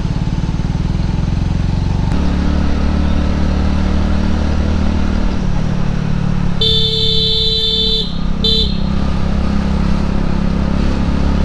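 Motorcycle engine running steadily under way, its note changing about two seconds in. About seven seconds in a horn sounds for a little over a second, then gives one short toot.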